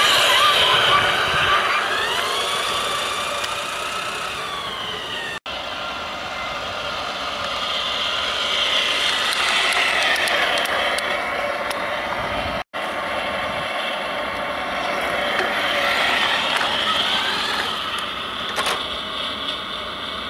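Playmobil RC freight train (5258) locomotive running along plastic track: its battery-driven motor and gears whine with a pitch that wavers up and down, over wheel rumble. The sound cuts out briefly twice.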